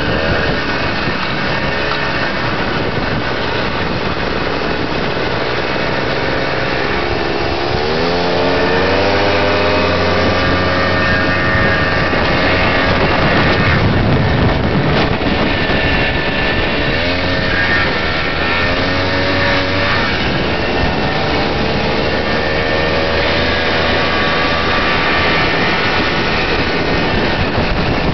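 Swedish army Husqvarna two-stroke motorcycle engine running under way. Its pitch climbs as it accelerates about eight seconds in and again about seventeen seconds in, then holds steady, over constant road and wind noise.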